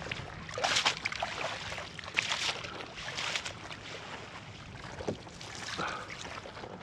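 Fishing landing net being swished and dunked through the water beside a kayak, splashing in a few bursts about a second in, around two seconds and around three seconds, then quieter water sounds.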